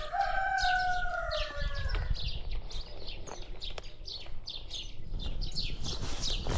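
Birds chirping over and over, about two or three short falling chirps a second, over a steady low rumble. A held tone slides slowly downward in the first two seconds and then stops.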